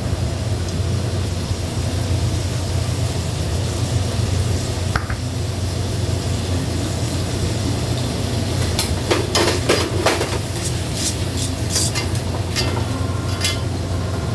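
Food sizzling in a hamburger shop kitchen over a steady low hum, with metal utensils clinking and scraping. A cluster of clinks comes about nine seconds in, and a few more near the end.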